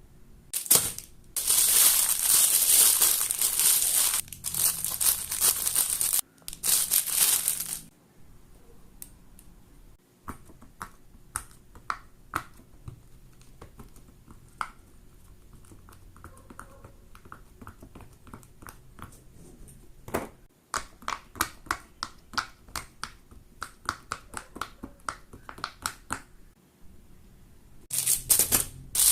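Fidget toys being handled. For several seconds there is crinkling, crackling plastic, followed by a long run of small, irregular sharp pops and clicks, like silicone pop-it bubbles being pressed. The crinkling returns near the end.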